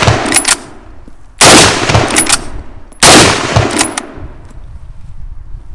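Browning Maral straight-pull rifle fired twice, about a second and a half apart, each shot loud and echoing away. The opening moments hold the fading echo of the shot before.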